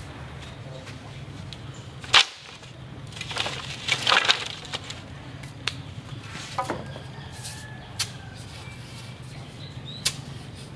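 Bamboo poles and split bamboo strips knocking and clattering as they are handled and set down on a pile: a loud sharp crack about two seconds in, a rattling clatter soon after, then scattered single knocks, one near the end as a pole is jabbed into the ground.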